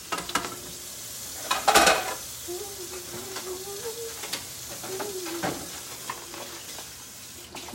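Beaten eggs in butter sizzling steadily in a skillet on medium-high heat, with a few clinks and one louder clatter about two seconds in from dishes being hand-washed at the sink.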